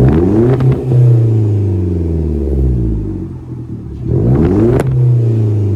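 Audi A1 engine blipped twice through an exhaust fitted with a small perforated straight-through resonator. Each time the revs climb quickly, then fall back toward idle. A short sharp crack comes at the peak of the second rev.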